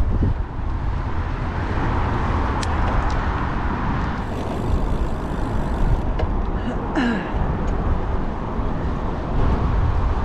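Wind rushing over a bike-mounted action camera's microphone, with road and traffic noise, while riding a bicycle along a road. The sound is a steady, heavy rumble, with a brief high squeak about seven seconds in.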